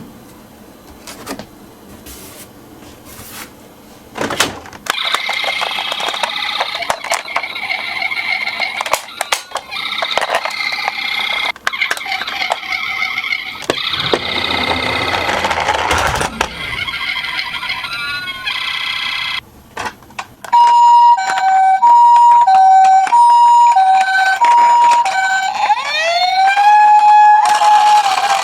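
Toy ambulance minicar's electronic siren sounding a two-tone hi-lo pattern, then a rising wail that holds, then back to hi-lo near the end. Before it, a long stretch of rolling, rumbling noise from the toy cars running on the slope.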